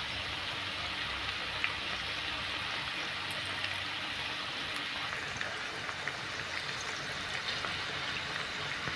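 Besan-coated okra strips deep-frying in a kadhai of hot oil on medium heat: a steady sizzle with a few small pops.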